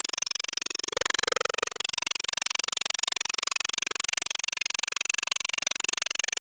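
Dremel-type rotary tool with a cutting disc grinding through a rusted exhaust bolt, running at a steady fast buzz.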